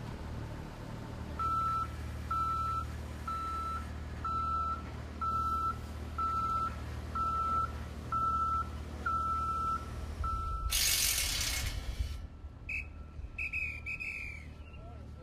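Motion warning alarm on heavy site machinery beeping about once a second, ten beeps at one steady pitch, over a low engine rumble. A sudden hiss about a second long follows the last beep.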